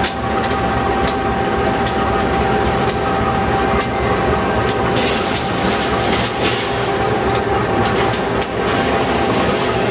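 General Electric diesel locomotive rolling slowly past, its engine running steadily with a thin steady whine on top. The wheels click over the rail joints about once a second at first, and faster near the end.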